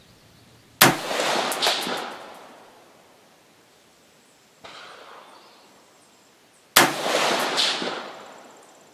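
Two rifle shots from a 5.56 AR-15 with a 16-inch heavy barrel, firing Wolf steel-case 55-grain ammunition, about six seconds apart. Each shot is very loud and sudden and dies away over about a second with an echo. A much softer thump comes between them.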